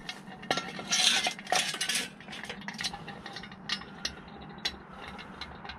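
Steel square-tube extension boom of an engine hoist being slid into the main boom: metal clinking and scraping, busiest over the first two seconds, then scattered lighter clicks.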